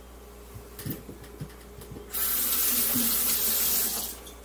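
Kitchen tap running into a stainless steel sink for about two seconds, starting and stopping abruptly, after a few light knocks.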